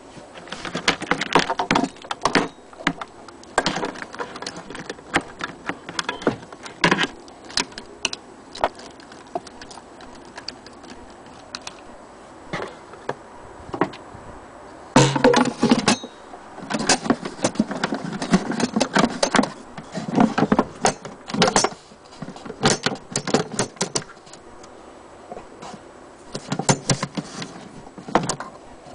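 Irregular clicks, knocks and rattles from the Singer 201K sewing machine and its case being handled, coming in clusters with short pauses.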